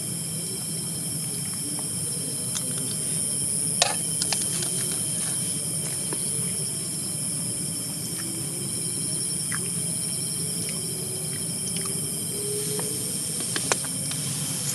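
Steady insect chorus: a continuous high shrill buzz with several thinner steady tones beneath it, over a low hum, with a few faint clicks about four seconds in and near the end.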